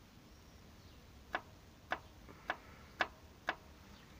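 ZMZ-402 engine's connecting rod rocked by hand on its crankshaft journal, knocking five times about every half second after a second's pause. The knock comes from play at the big end, where the bearing shell needs replacing at the least.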